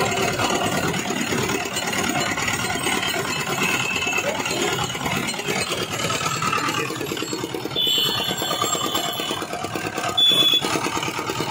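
Motor-driven sugarcane roller press running steadily, its belt-and-pulley drive turning the steel rollers as cane stalks are fed through and crushed.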